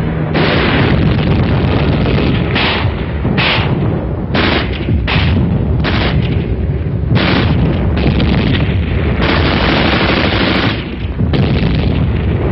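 Battle sounds: gunfire and explosions in a rapid, nearly unbroken series of loud blasts and bursts of firing. The sound is thin and dull on the top end, as from an old film soundtrack.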